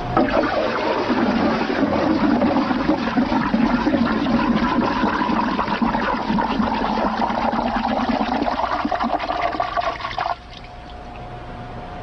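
Water sloshing and swirling in a barrel as it is stirred by hand and with a stick into a vortex, a dense rushing, churning sound. It cuts off abruptly about ten seconds in, leaving a fainter sound with a steady tone.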